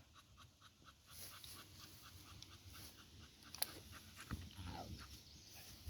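A dog panting faintly and quickly, about four to five breaths a second, with a single sharp click about three and a half seconds in.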